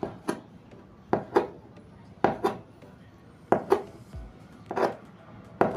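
Knife chopping through rolled chin chin dough onto a cutting board: about nine sharp knocks, mostly in quick pairs roughly a second apart.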